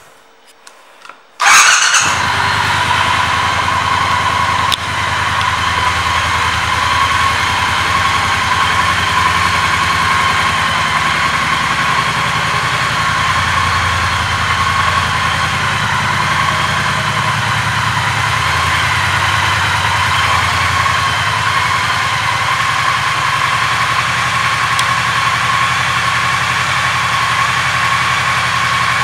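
2020 Triumph Bonneville T120's 1200 cc parallel-twin engine starting about a second and a half in, catching at once, then idling steadily.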